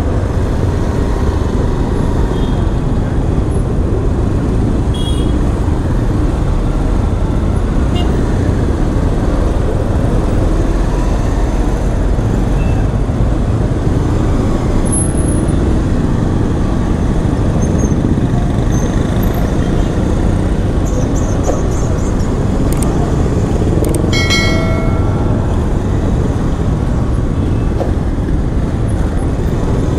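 Steady city traffic noise heard from a moving motorcycle in a slow jam, with a vehicle horn honking briefly about three-quarters of the way through.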